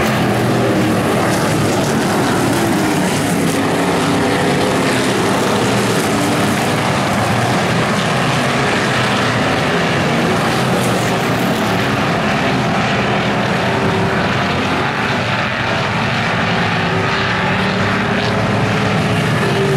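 Several dirt-track stock car engines running together as the cars circle the oval, a steady loud drone whose pitch rises and falls gently as they go around.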